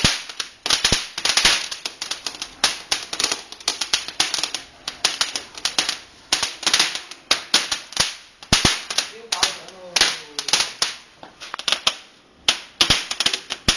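A small spark-spraying firework crackling with rapid, irregular sharp pops. The crackle dies down briefly near the end, then starts again.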